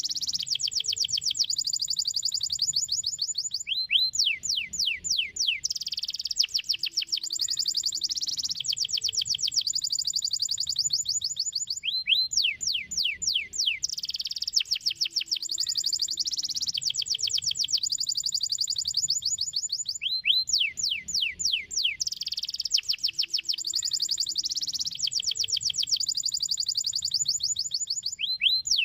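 Domestic canary singing: fast rolling trills, broken about every eight seconds by a run of quick falling whistles, the same phrase coming round again each time as in a looped song track.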